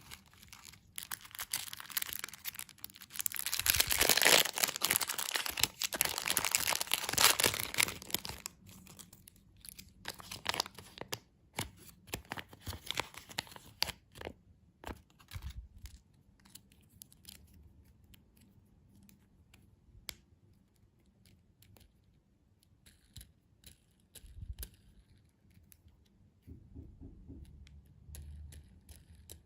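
Plastic candy wrapper being torn open and crinkled. The crackling is dense and loudest over the first several seconds, then thins to scattered light crinkles and clicks.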